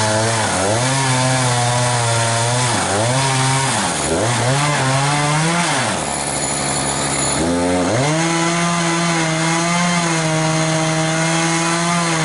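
Echo CS-590 Timberwolf two-stroke chainsaw cutting into a big log, its engine pitch dipping and recovering several times as the chain bites into the wood. About six seconds in it drops to idle for a second and a half, then revs back up and runs steadily in the cut.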